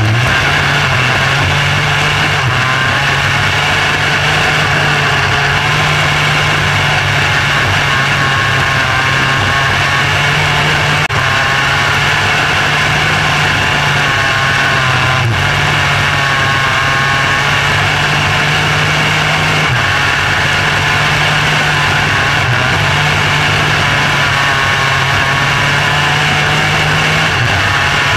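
Micro sprint car's engine running hard at racing speed, heard close up from onboard the car. It is loud and steady, with its pitch rising and falling slightly as the car goes through the laps.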